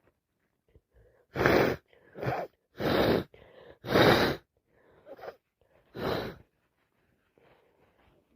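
A woman with a cold in a sneezing fit: a quick run of loud sneezes and gasping breaths, five bursts in about five seconds.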